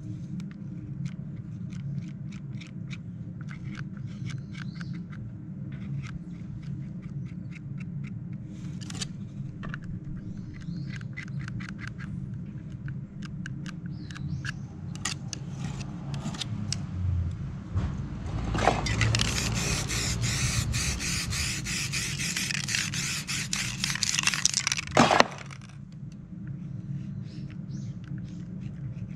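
A palette knife scraping and scratching lightly across freshly spray-painted paper in many short strokes. About two-thirds of the way through, an aerosol spray-paint can hisses in a loud steady burst for about six seconds and cuts off suddenly.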